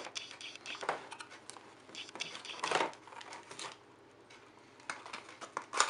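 A small cardboard accessory box being handled over plastic packaging: scattered rustles and light knocks, about half a dozen over a few seconds, as its contents shift.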